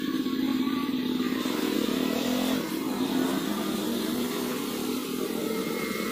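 Sibel submersible water pump's electric motor running with a steady hum and a fast flutter.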